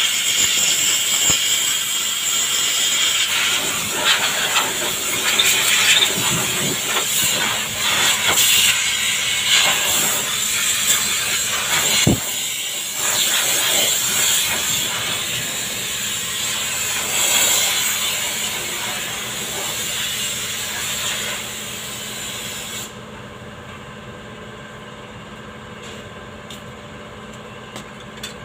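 A loud, steady hiss with scattered clicks, like air or spray being released. It cuts off suddenly about 23 seconds in, leaving a quieter steady background hum.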